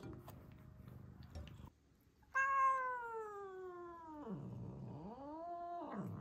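Kitten's threat yowl: a long wail that slowly falls in pitch and breaks into a low growl, then a second wail that rises, holds and sinks into another growl. A defensive warning call at a person the kitten takes for a stranger.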